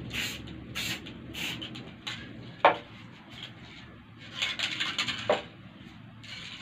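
Aerosol spray paint can giving short bursts of spray hiss, several in a row, with two sharp metallic clicks, the loudest sounds, a little over two and a half seconds in and again about five seconds in.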